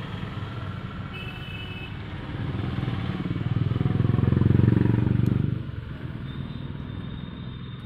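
A motor vehicle's engine running, swelling to its loudest about four to five seconds in, then dropping off sharply.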